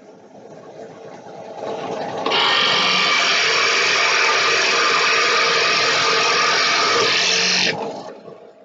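Drill press with a 2-inch boring bit turning at about 1200 RPM, boring into a wooden board. The sound builds over the first two seconds, holds loud and steady for about five seconds while the bit cuts, then dies away near the end.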